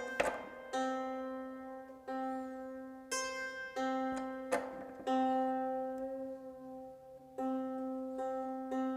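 Hammered dulcimer strings plucked one at a time, about eight plucks, each note ringing and fading. A lower bass-bridge string and a matching note an octave higher are sounded in turn while the bass string is tuned by ear to the octave.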